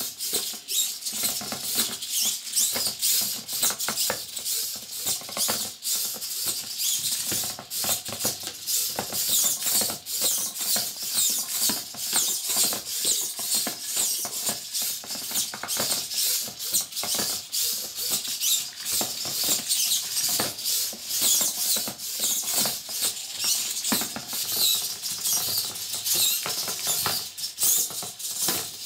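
Small hobby servo motors of a 3D-printed crawling robot working its finger-like arm, with rapid scratchy clicking and scraping as its plastic parts drag and tap across a wooden floor.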